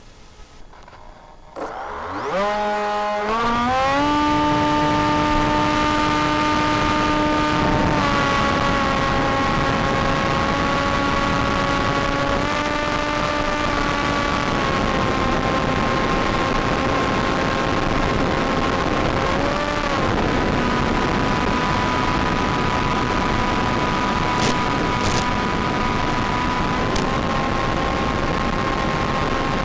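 Electric motor and propeller of a Blade Theory Type W race wing spinning up with a steeply rising whine about two seconds in. It then runs steadily over a rush of air, its pitch stepping a little up or down several times as the throttle changes.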